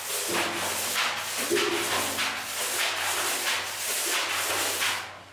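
A brush scrubbing the inside of a brewery tank during cleaning: a dense hissing, rushing noise that pulses with the strokes about three times a second, stopping abruptly near the end.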